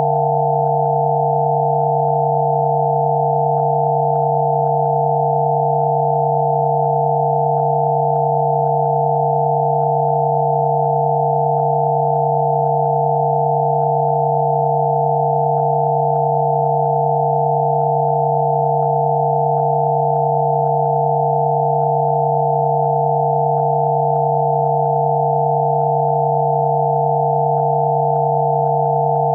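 Several synthesized pure sine tones sounding together, one low and a few higher, steady and unchanging in pitch and loudness: a Rife frequency therapy tone.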